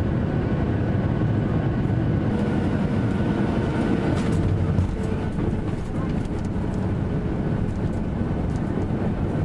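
Steady rumble of jet engines and airflow heard inside an airliner's cabin, with a faint steady whine on top, as the plane taxis.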